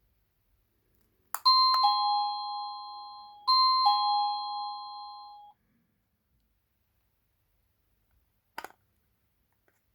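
EMASTIFF wireless doorbell receiver playing an electronic two-tone ding-dong chime twice, a higher note then a lower one each time, the notes ringing on and fading before the chime cuts off suddenly. A sharp click comes just before the chime, and another short click near the end.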